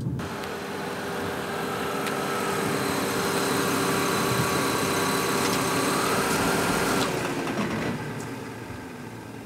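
Ford minivan running, engine and road noise holding steady for about seven seconds, then dropping away and fading as the van comes to a stop.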